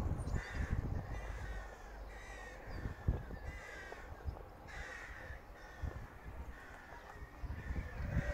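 A crow cawing over and over, a series of short calls about a second apart, over a low rumble with a few dull thumps.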